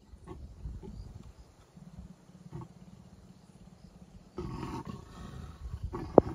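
Leopard vocalising in low, rasping grunts and growls, with a louder burst about four and a half seconds in. A single sharp click sounds near the end.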